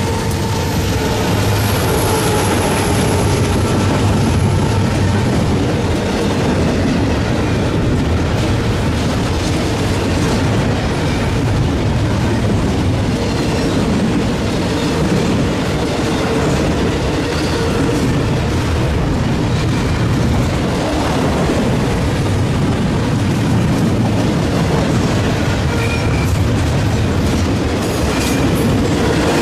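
A train passing close by with a steady, loud rumble of wheels on rail and a clickety-clack over the joints. A horn dies away just as it begins, and a thin high whine runs through the first several seconds.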